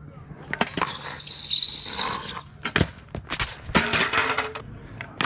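Stunt scooter wheels rolling on concrete with a high, steady squeal for about a second and a half, then a series of sharp clattering knocks as the scooter and rider crash to the ground, with a burst of scraping in the middle.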